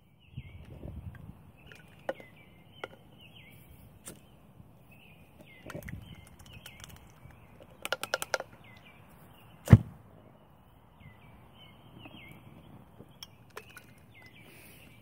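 A small bottle of hand sanitizer being handled and knocked against a hard surface: scattered knocks, a quick rattle of about six taps, and one loudest knock near the end. Faint chirping goes on in the background.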